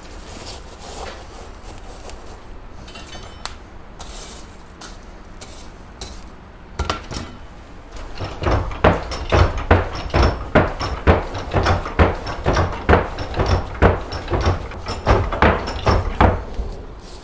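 Quiet metal clatters and scrapes of the iron tongs being handled, then, about eight seconds in, a steady series of hammer blows on the tongs' jaws against the anvil, about two a second, to align the jaws.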